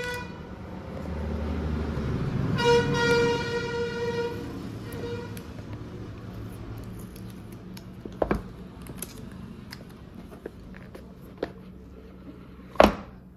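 A vehicle horn honks: the end of one honk at the very start, then one steady honk of nearly two seconds a few seconds in, over a low rumble of traffic. Later come two sharp knocks, one in the middle and one near the end.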